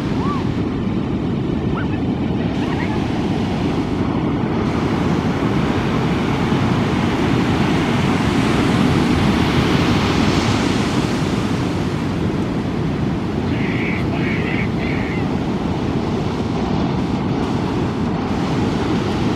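Ocean surf washing on the shore with wind buffeting the microphone: a loud, steady rumble, with a wave swelling louder midway.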